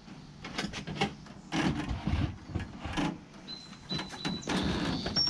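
Plastic pet carrier being handled, with irregular clicks, knocks, scrapes and rustling.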